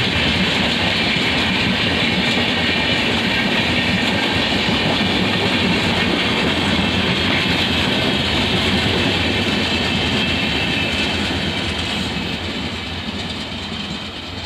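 Mysore–Tuticorin Express coaches rolling past on the rails: a steady rumble with wheel clatter, fading over the last few seconds as the train moves away.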